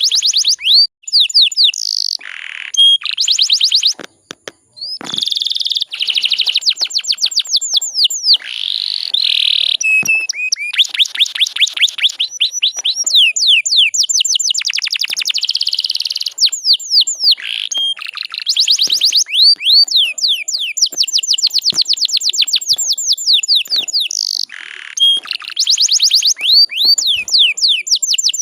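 Canary singing fast rolling trills, long runs of rapid repeated chirps that change speed and pitch from phrase to phrase, with a couple of short breaks.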